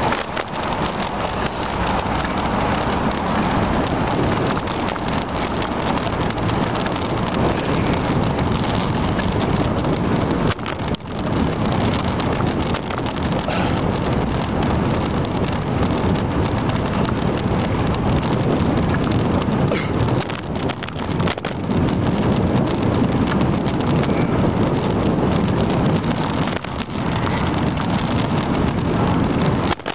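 Steady rushing noise of wind buffeting the microphone of a bicycle-mounted camera while riding, mixed with tyre hiss on wet pavement. It dips briefly a few times.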